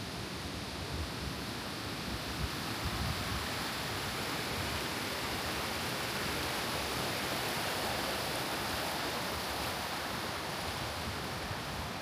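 Steady rushing of river water, growing slightly louder midway, with wind buffeting the microphone in the first few seconds.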